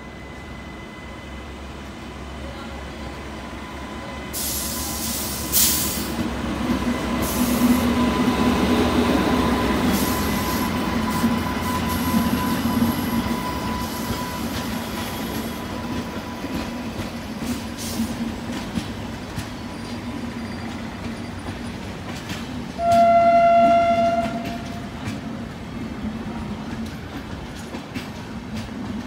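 WAP-7 electric locomotive approaching and passing, growing louder with a steady electric whine and a few short, shrill hissing bursts, followed by its LHB coaches rumbling and clattering by over the rail joints. About 23 seconds in, a train horn gives one loud, steady blast of about a second and a half.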